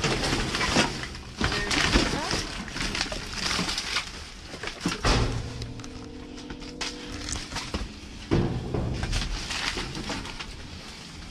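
Irregular rustling, crackling and knocking of trash bags and objects being handled and moved about inside a dumpster.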